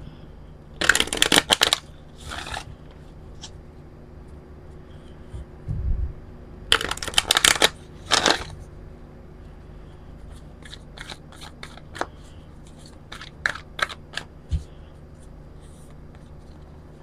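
A deck of oracle cards being riffle-shuffled by hand twice, each riffle a rapid flutter of cards lasting about a second, with a shorter patter as the halves are bridged back together. Near the end come a run of separate light card snaps as the cards are handled and fanned.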